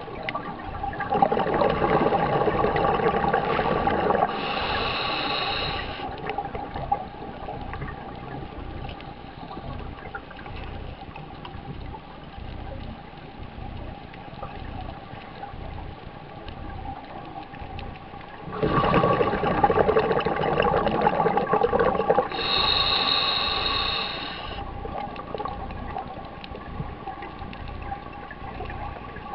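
Scuba diver breathing through a regulator underwater: a long rumbling burst of exhaled bubbles, then a short hissing inhale through the regulator. The cycle comes twice, the second starting about two-thirds of the way through.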